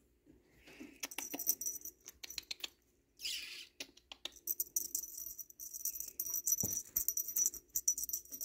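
A small bell on a cat toy jingling and rattling in quick irregular shakes. It starts about a second in, pauses briefly with a short rustle, then carries on.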